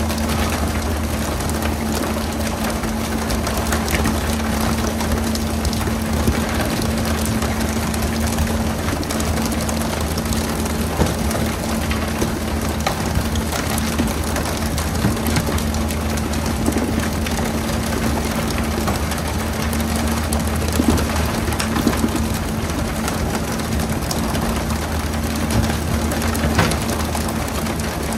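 A fishing boat's engine running steadily under a constant hiss of spraying and splashing water, with a few short knocks.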